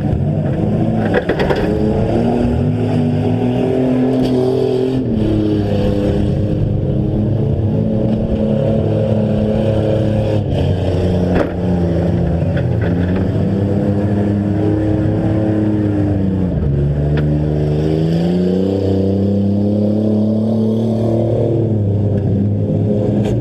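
Demolition derby car engines running hard, several at once, revving up and down with a few sharp knocks. The pitch drops about sixteen seconds in, then climbs again.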